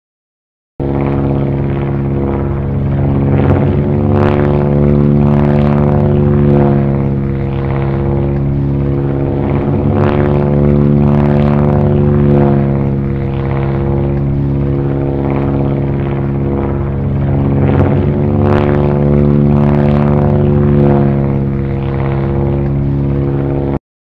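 Vintage propeller fighter plane's piston engine droning steadily in flight, with slight swells in level. It starts abruptly about a second in and cuts off just before the end.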